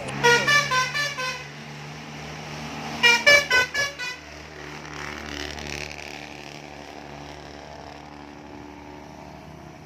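Musical multi-tone horn of a heavy road vehicle playing a quick run of notes stepping down in pitch, twice, about three seconds apart, over a steady diesel engine hum.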